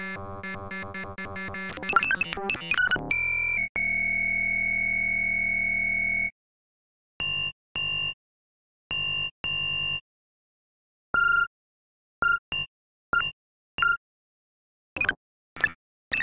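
Electronic synthesized tones: a fast, choppy run of synth notes, then one held buzzy tone for about two and a half seconds. After that comes a string of short beeps, first in pairs and then as quicker blips, each separated by dead silence.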